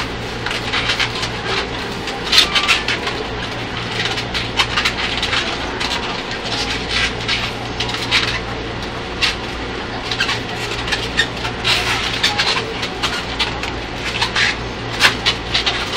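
Latex modelling balloons squeaking and rubbing in short, irregular squeaks as they are twisted into a balloon hat, over the steady low hum of a train carriage.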